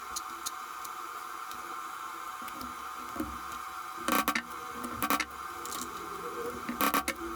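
Steel letter stamp struck with a hammer to stamp a letter into a metal washer: three sets of sharp metal blows, each two or three quick strikes, starting about four seconds in, with faint small clicks earlier as the stamp is set in place.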